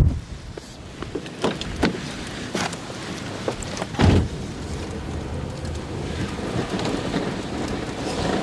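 Severe thunderstorm outflow wind gusting, with scattered sharp ticks of wind-blown rain and grit striking the vehicle. Strong low gusts buffet at the start and about four seconds in.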